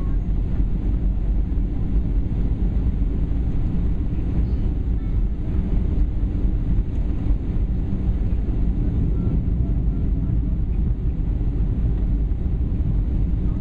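Steady cabin noise of a Boeing 737 on final approach, heard from a window seat by the wing: a low, even rush of airflow and engine noise.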